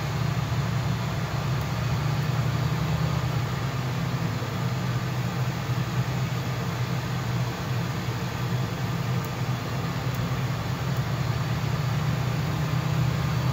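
Ford E-450 bus engine running steadily at a high idle of about 1,800 rpm while it warms up after a cold start in freezing weather, heard from inside the cab as an even, low hum.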